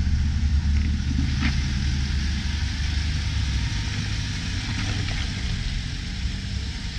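Land Rover engine running at low revs, a steady low rumble, with a light click about one and a half seconds in.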